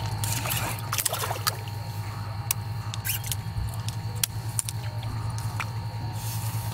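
A hooked fish splashing and thrashing at the water's surface beside the boat, making sharp splashes at irregular intervals, over a steady low hum from a small motor on the boat.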